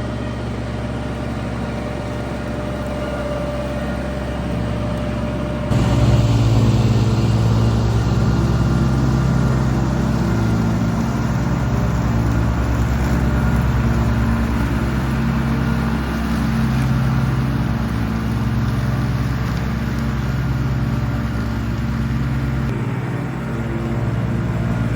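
Kubota G231 ride-on mower's three-cylinder diesel engine running under load with the cutting deck engaged, mowing long wet grass. The sound steps up suddenly and gets louder about six seconds in.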